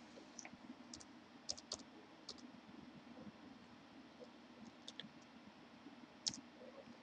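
A few faint computer keyboard keystrokes, scattered single clicks against near-silent room tone, as a number is typed in.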